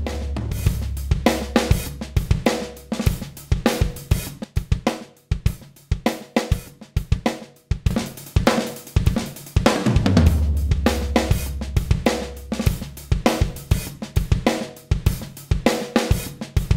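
Drum kit playing a groove of kick, snare, hi-hat and cymbals, heard through a 1176-style 'Blue Stripe' compressor. A deep low note sounds under the drums near the start and again about ten seconds in.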